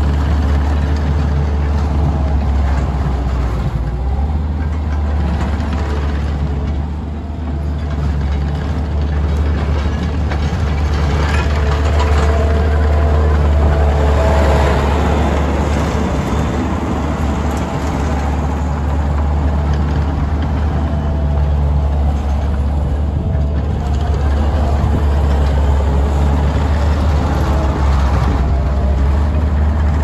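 Takeuchi TL140 compact track loader's diesel engine running steadily as the machine drives and turns. The sound grows louder, with a faint whine, between about twelve and fifteen seconds in.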